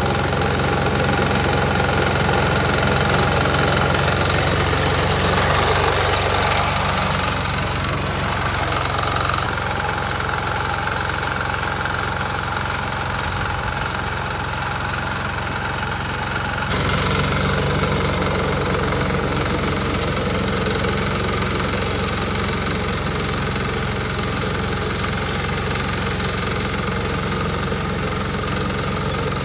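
Small engine of a walk-behind mini tiller with a reaper attachment, running steadily at an even speed, with an abrupt change in its sound a little over halfway through.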